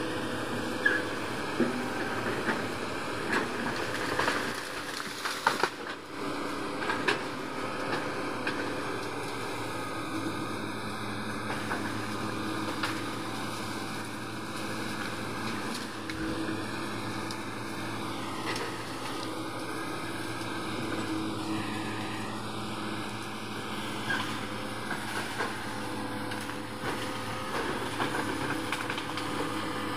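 Diesel engine of a large Hitachi 210F excavator running steadily under work, with several sharp cracks or knocks in the first seven seconds or so.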